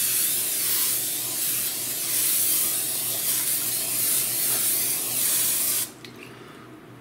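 Aerosol can of Pam cooking spray hissing in one long continuous spray into a glass loaf pan, stopping abruptly about six seconds in.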